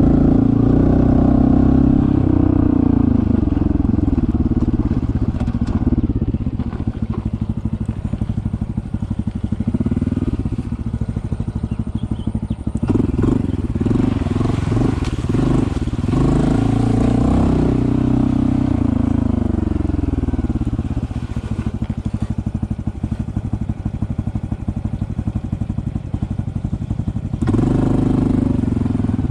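Honda CT125's small single-cylinder four-stroke engine running under way on a trail, its revs rising and falling several times with throttle changes.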